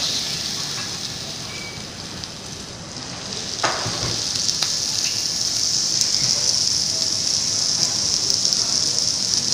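Thin slices of raw beef sizzling on a hot grilling stone: a steady hiss that sags briefly and then swells again, with one sharper spit a little before four seconds in.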